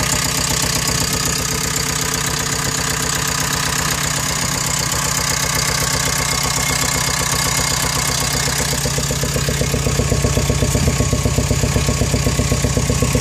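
JCB ecoMAX four-cylinder diesel engine of a JS130 LC T4i excavator idling with a steady, rapid pulsing, heard with the engine compartment open. It gets louder near the end.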